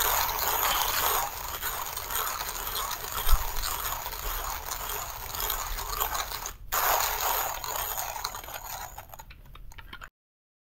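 1Zpresso manual burr coffee grinders being hand-cranked, crunching through light roast coffee beans as a dense crackling grind. There is a brief break about two-thirds in, and the crunching thins out near the end, then stops abruptly.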